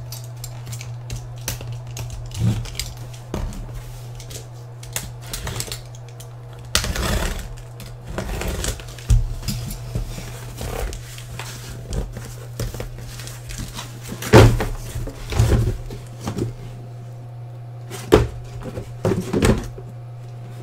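Cardboard shipping case being opened and the card boxes inside slid out and set down on a table: scraping and rustling cardboard with irregular knocks, the loudest about two-thirds of the way through. A steady low hum runs underneath.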